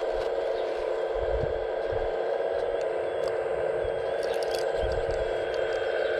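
Hydraulic pump of an RC model excavator running with a steady whine, with light scraping and clicking from the machine at work.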